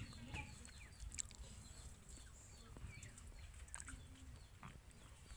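Quiet outdoor background with a few faint, short animal calls and scattered small clicks over a low rumble.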